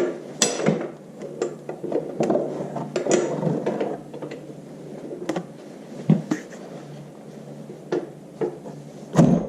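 Metal clinks and knocks of a 1-inch socket and large breaker bar being fitted to and worked on a tractor's rear axle bearing retainer bolt, a scatter of separate sharp strikes.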